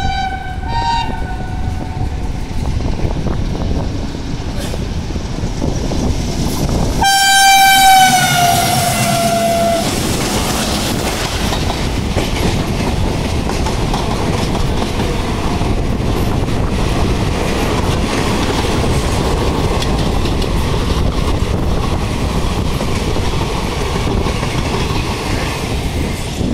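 Two-tone horn of an oncoming Indian Railways diesel locomotive: one blast ends about two seconds in, and a louder one about seven seconds in drops in pitch as the locomotive passes. After it comes the steady rushing and clickety-clack of its passenger coaches going by on the next track, heard from the open door of a moving train.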